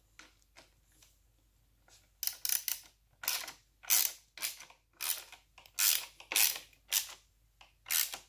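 Hand ratchet tightening a bracket screw into its nylon-insert locknut, its pawl clicking on each back-swing. A few faint ticks, then from about two seconds in a run of sharp clicking strokes, about two a second.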